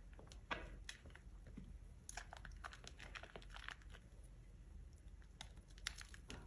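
Soap being scuffed and crushed: faint, irregular crackly scrapes and crunches in short strokes, most of them bunched a little past the first second and again near the end.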